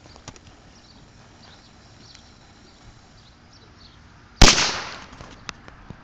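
A single sharp firework bang about four and a half seconds in, fading out over about a second, against faint outdoor background noise.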